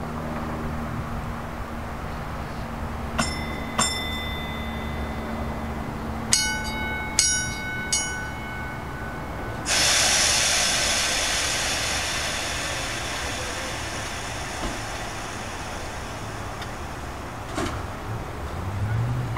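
A vintage interurban electric streetcar standing with a low steady hum. Its bell is struck twice about three seconds in, then three more times a few seconds later, each strike ringing on. A sudden loud hiss follows about ten seconds in and fades slowly.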